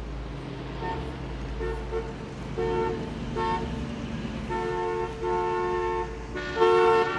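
Car horns honking again and again in street traffic, short toots at first and then longer held blasts, over a low traffic rumble.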